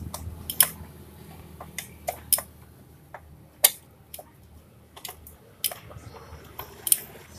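A steel rod clicking and tapping against a scooter's metal engine side cover as it is worked around the edge to pry the cover off: about ten sharp, irregular metallic clicks.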